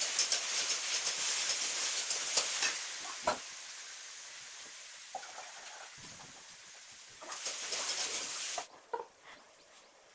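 Food frying in hot oil in a pan, a loud sizzle with a few clicks and spatters that slowly dies down over several seconds. About seven seconds in, a shorter burst of sizzling hiss flares up again and stops suddenly.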